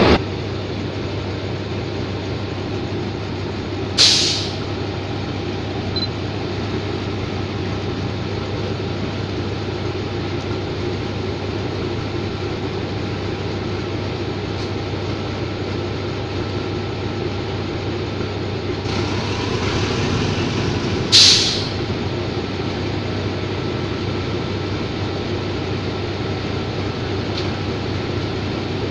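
State Railway of Thailand diesel locomotive 4514 idling steadily at the platform, with two short, sharp hisses of released air from its brake air system, about four seconds in and again about twenty-one seconds in.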